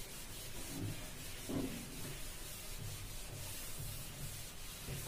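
Handheld eraser wiped back and forth across a whiteboard: a quiet, steady rubbing made of repeated strokes.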